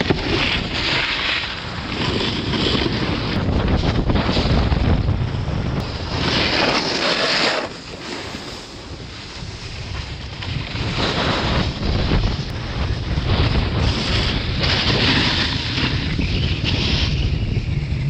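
Wind rushing over the microphone of a camera carried down a ski slope, mixed with snowboard edges scraping across packed snow. The noise swells in several louder surges.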